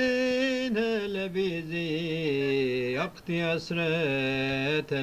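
A man singing a slow Turkish destan with no instruments, holding long ornamented notes that step downward in pitch, with short breaks for breath about three seconds in.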